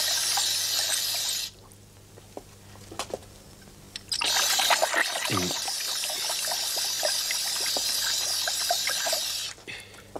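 Cold water running from a sink tap into the basin while a rubber ice bag is filled. The flow drops away after about a second and a half, runs again from about four seconds, and stops shortly before the end.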